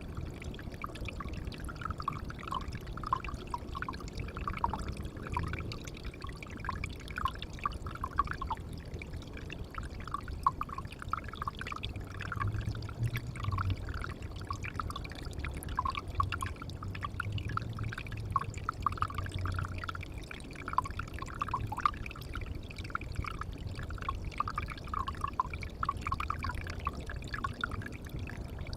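Water pouring and trickling into a pond, with a steady run of short, bubbly plinks.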